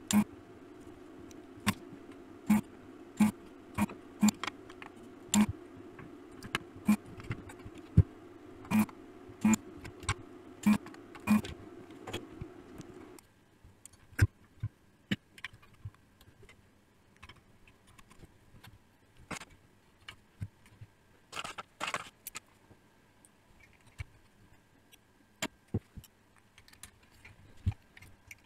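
Capacitors being desoldered from a refrigerator power supply board: a desoldering tool hums steadily with sharp clicks and taps every half-second to second, the hum cutting off abruptly about 13 seconds in. After that come scattered clicks and knocks of the circuit board and its metal bracket being handled.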